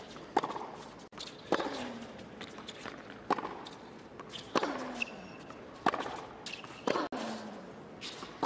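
Tennis rally on a hard court: the ball is struck back and forth with racquets, about seven sharp hits, one every second or so. Several hits come with a short falling grunt from a player, and shoes squeak briefly on the court twice near the middle.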